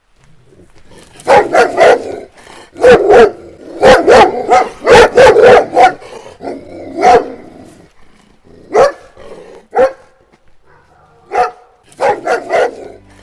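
A dog barking loudly over and over, in quick runs of two to four barks with short pauses between, the runs thinning out after the middle.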